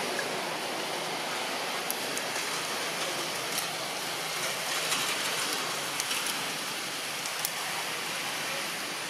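Steady rushing outdoor noise among forest trees, with a few faint sharp ticks scattered through it.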